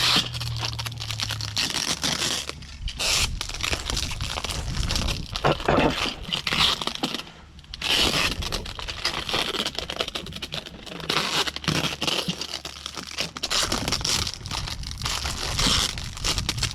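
Tape being pulled off the roll in ripping strips and wrapped tight around the crunched-up plastic end of an insulated duct jacket on flexible duct, with the plastic crinkling as it is handled. There is a short pause about halfway through.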